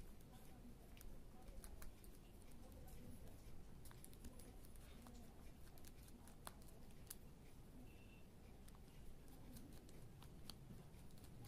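Faint, irregular small clicks of a precision screwdriver turning tiny screws out of the plastic back of a car central-locking remote fob, over near-silent room tone.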